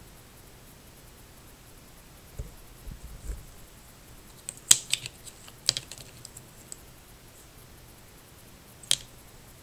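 Handling noise from working around an RC car's chassis and wiring: a few light knocks, then sharp plastic clicks, the loudest about five seconds in and one more near the end.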